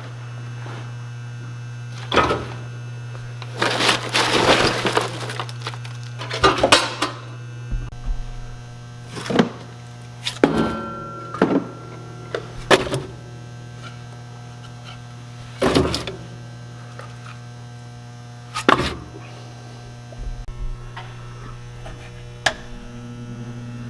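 Scattered knocks, clunks and a short crackling stretch as wood is handled and laid into a wood-burning furnace's firebox to start a fire, over a steady low hum.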